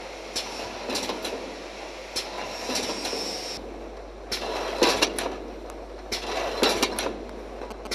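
Automatic aerosol can filling line running: a steady machine noise with irregular sharp metallic clacks from the mechanism and the aluminium cans moving through the station.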